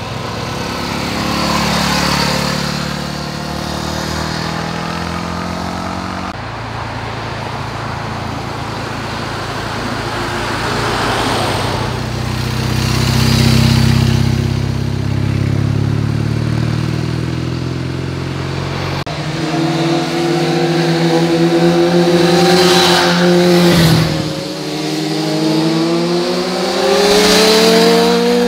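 Motorcycles taking a hairpin bend one after another, each engine rising in pitch as it accelerates out of the turn. A BMW GS Adventure boxer twin passes in the middle with a lower, deeper drone, and a sharper, higher-revving engine climbs steadily in pitch near the end.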